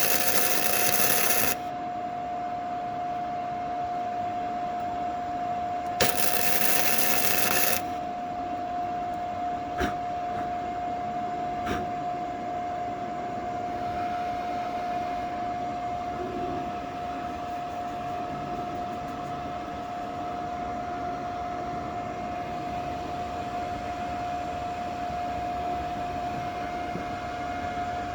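Small 100-volt welder laying weld on a car's steel frame to build up a dented section: the arc crackles and sizzles in two short bursts, about two seconds at the start and again about six seconds in. A steady hum with one constant tone runs underneath, with a couple of sharp clicks later on.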